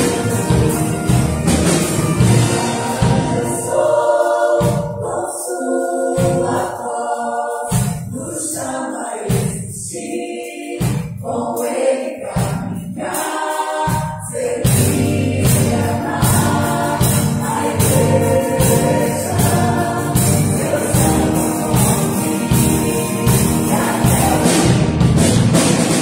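Live Christian worship music: a choir singing in parts over a band of electric bass, drum kit and piano. From about four seconds in, the bass and drums break into short spaced hits under the voices, then the full band comes back in a little past halfway.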